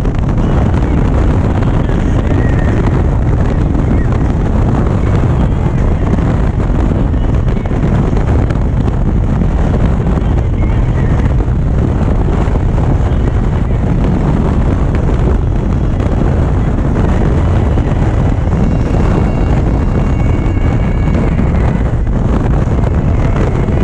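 Steady, loud wind rushing over the microphone on top of the road and engine noise of an Indian Chieftain V-twin motorcycle cruising at highway speed.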